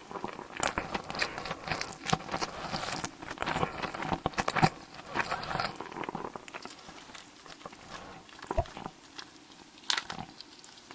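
Close-miked eating: chewing and mouth noises with many quick crunchy clicks, thinning out after about six seconds and picking up again briefly near the end.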